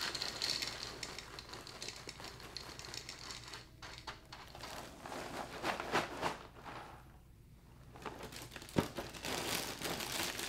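Plastic cereal bag crinkling as it is handled and folded closed, following the tail end of corn puffs being poured into a bowl at the start. The crinkling stops for about a second around seven seconds in, then picks up again.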